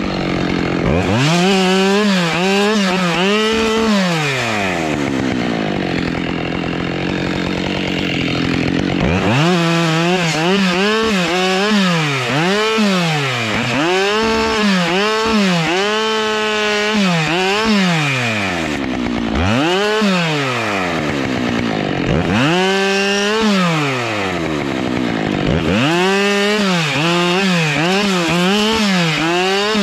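Husqvarna two-stroke chainsaw limbing spruce branches, revved to full throttle and dropped back again and again in short cuts. Early on it idles steadily for about five seconds before the rapid revving resumes.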